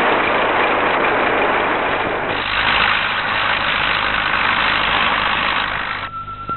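Engines of harvesting machinery (a combine harvester, then a heavy wheeled tractor) running in the field, a dense steady machine noise that shifts in character about two seconds in. About six seconds in the engine noise cuts off, leaving a single steady high tone.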